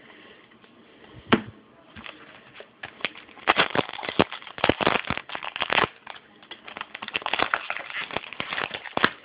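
Dense crackling and crinkling, as of a trading-card pack wrapper being handled or torn open. There are a few scattered crackles at first, and it becomes a busy run from about three seconds in until near the end.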